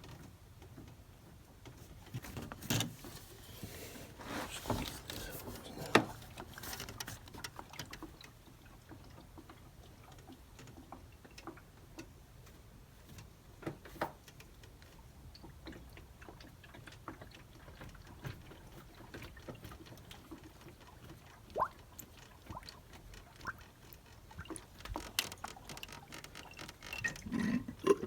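Scattered clicks and knocks of hand work in a car's engine bay while a coolant hose is squeezed to burp air out of a freshly refilled cooling system, over a faint low hum.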